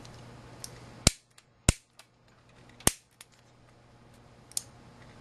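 Piezo gas grill igniter snapping four times, a sharp click each time the button is pressed and a high-voltage spark is fired into a multimeter, with about a second or more between clicks.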